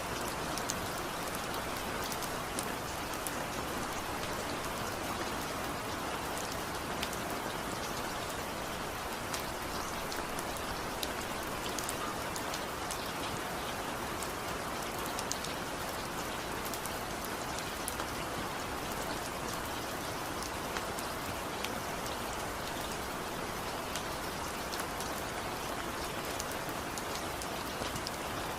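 Steady rain falling on a surface, a constant hiss with many individual drops ticking through it.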